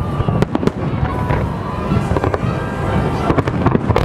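Fireworks display: aerial shells bursting overhead in a dense, irregular run of sharp bangs over a continuous low rumble.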